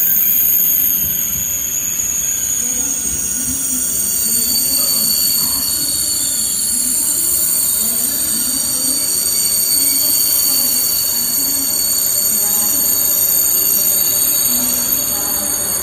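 KTX-Sancheon high-speed train rolling slowly past alongside the platform: a steady rumble of wheels on rail with uneven swells, under a continuous high-pitched whine.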